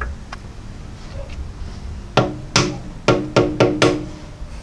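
Rubber mallet tapping on a metal part at the back of a 4G63 engine block: six sharp knocks in quick succession over about two seconds, each with a short metallic ring.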